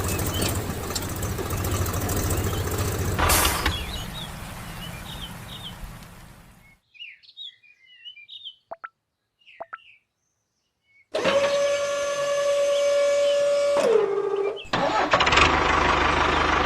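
Machine noise in sections: a motor or engine running steadily, fading away over several seconds; then near silence with a few short bird-like chirps; then a steady high motor whine that drops in pitch and cuts out, followed by loud engine-like running again.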